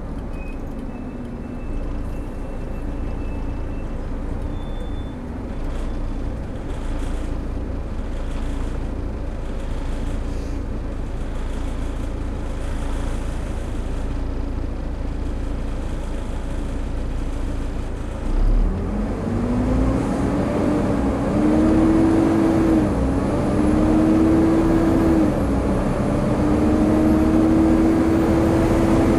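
Volvo B7TL double-decker bus running, heard from inside, with an even drone for most of the time. About two-thirds of the way through, the engine and its cooling-fan roar rise in pitch as the bus accelerates hard. The pitch drops back at each upshift of the ZF Ecomat five-speed automatic and climbs again, about three times.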